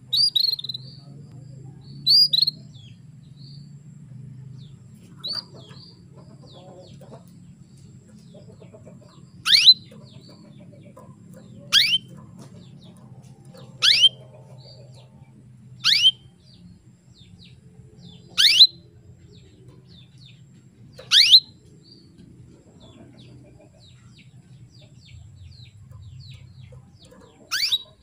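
Female domestic canary calling to a male: a few short chirps, then single sharp calls, each a quick downward-sweeping note, repeated about every two seconds.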